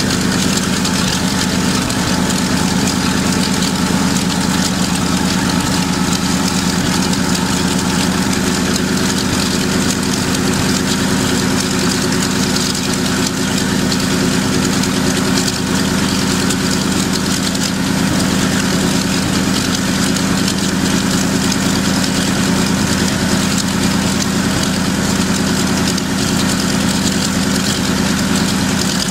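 B-24 Liberator's Pratt & Whitney R-1830 Twin Wasp 14-cylinder radial engine running steadily on a test stand, propeller turning.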